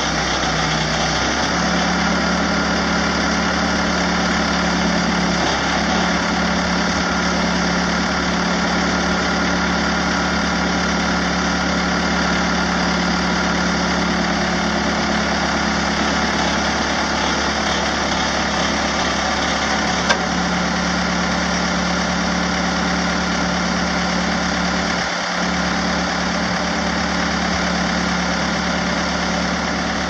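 1998 Case 580 Super L backhoe's diesel engine running steadily at idle, its speed stepping up slightly about a second and a half in. A single sharp click about two-thirds of the way through.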